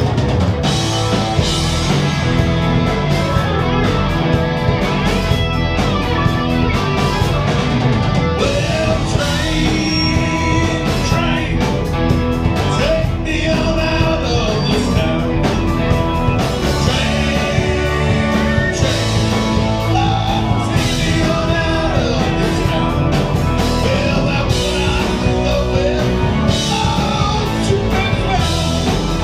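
Rock song played by a band, with singing over guitar and drums.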